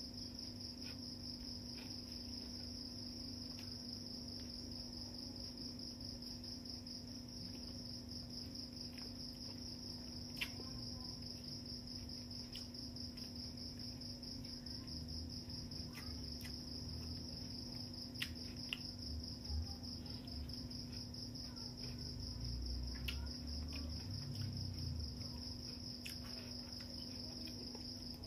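A cricket trilling continuously in a high, finely pulsing note over a low steady hum. Now and then faint clicks and soft chewing sounds of rice being eaten by hand from a plate.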